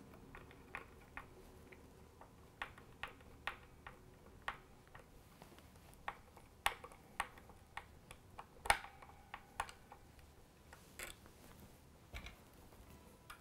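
Faint, irregular clicks and ticks, a few a second, as a Phillips screwdriver turns a wood screw through a Schaller strap-lock button into the guitar body. One sharper click comes a little past the middle, and the clicks thin out near the end.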